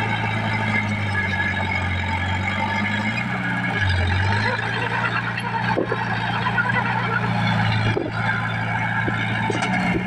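Small Komatsu crawler bulldozer's diesel engine running steadily while the blade pushes soil, its pitch dipping briefly about four seconds in, with track clatter and a few sharp clanks.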